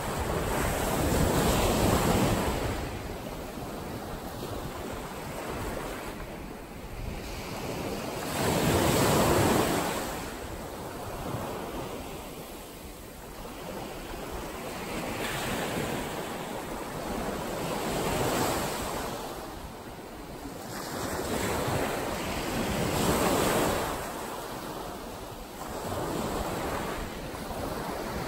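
Small ocean waves breaking and washing up a sandy beach, the surf rising and falling every several seconds with about four louder swells.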